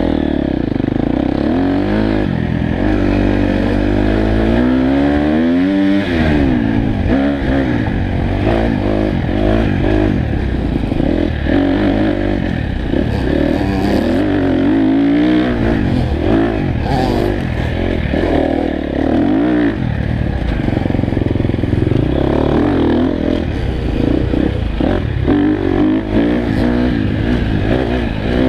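Dirt bike engine being ridden on a trail, its pitch rising and falling over and over as the throttle is opened and closed.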